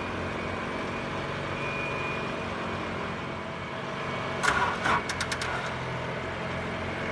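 An engine running steadily, with a quick run of sharp clicks about four and a half seconds in.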